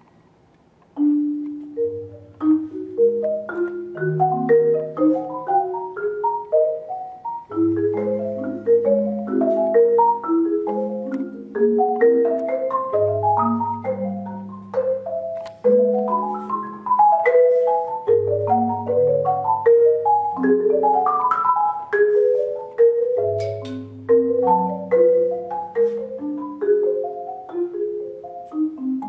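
Marimba struck with mallets in a free improvisation. After about a second of near silence it starts a flowing line of mid-register notes, over low bass notes that ring under it roughly every five seconds.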